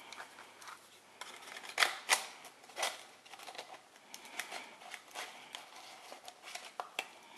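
Metal clicks and clinks as a band-type piston ring compressor is worked over an aluminium piston and its rings, with a few sharper clicks about two to three seconds in.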